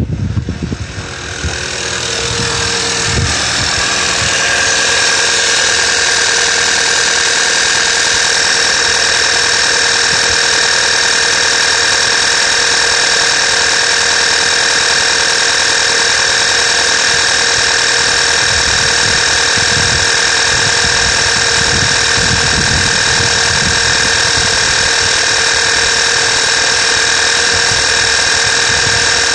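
VW Tiguan TSI petrol engine idling, a steady hum with high whining tones over it. It grows louder over the first few seconds, then holds even.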